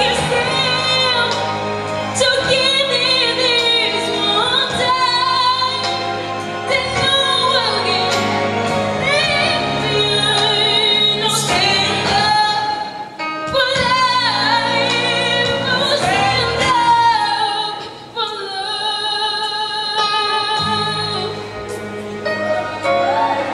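A girl singing a slow song into a handheld microphone over backing music, holding long notes that waver.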